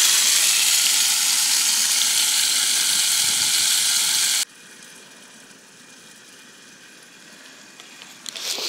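Chilli beef and peppers sizzling in a steel pot on a gas-canister camping stove, a loud even hiss that cuts off abruptly about four and a half seconds in. Quiet outdoor background follows.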